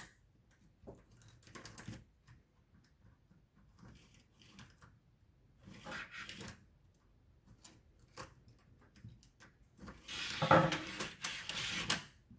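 Scattered clicks and light plastic clatter of a tape measure's reel and housing being handled while its recoil spring is rewound, with a longer stretch of louder rattling and rubbing near the end.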